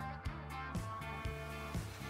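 Background music: pitched notes at a steady pulse of about four a second.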